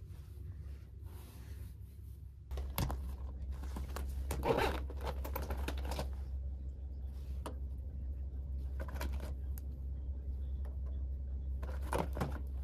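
Rustling and clicking as a clear plastic cosmetics pouch and makeup products are handled and set down on a stone countertop, in a few short clusters, the loudest a couple of seconds in. A steady low hum runs under them.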